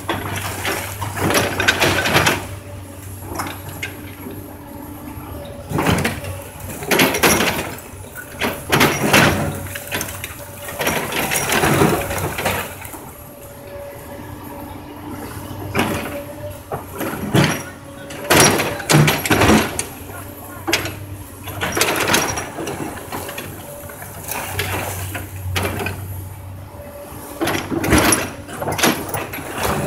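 Komatsu 200 excavator running under load while its bucket tears into a wood-frame house: the engine drones steadily under a string of crashes and cracks of breaking lumber and falling debris, a dozen or so separate impacts.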